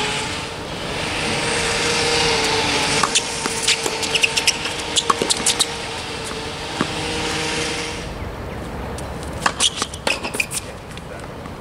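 Tennis rally on an outdoor hard court: sharp pops of racquets striking the ball and the ball bouncing, with short squeaks of shoes on the court, in two bursts of play. A steady background hum drops away about eight seconds in.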